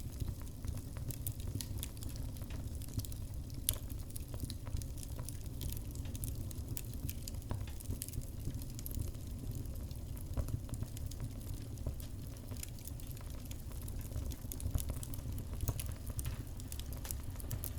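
Wood fire burning in a kitchen stove with the firebox door open: light, irregular crackling and snapping over a low, steady rumble.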